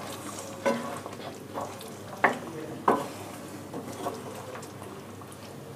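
A spatula stirring thick paneer gravy in a nonstick frying pan: about eight irregular scrapes and soft knocks against the pan, with wet squelching of the gravy between them.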